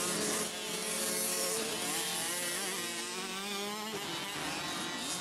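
Several small two-stroke mini motocross bikes racing, their engines revving up and down over one another with a high buzzing pitch.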